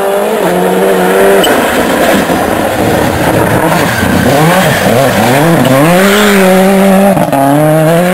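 Rally car engine running at high revs, held steady at first, then a stretch of rushing noise, then its pitch falling and climbing again several times before it settles at a steady high note.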